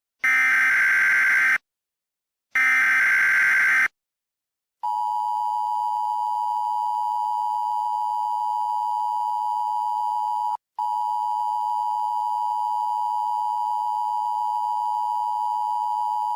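Emergency Alert System tones: the last two bursts of the screeching digital SAME header, each about a second and a half long, then the steady two-tone EAS attention signal, held for about eleven seconds with a brief break midway.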